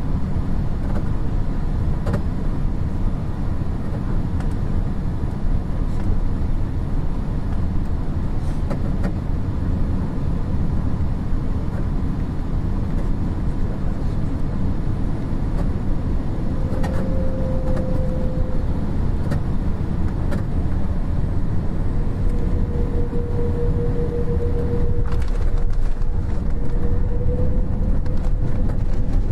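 Steady low rumble of airflow and engines inside the cabin of a Boeing 787-8 during its landing. A few light knocks come through, and a thin whine rises about halfway through and again over the last several seconds.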